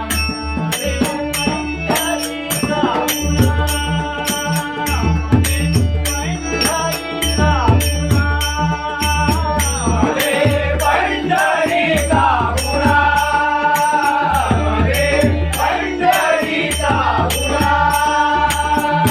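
Marathi devotional bhajan: a male voice sings an abhang in long, sliding phrases. Pakhawaj drum strokes and small hand cymbals keep a steady beat over a sustained drone note.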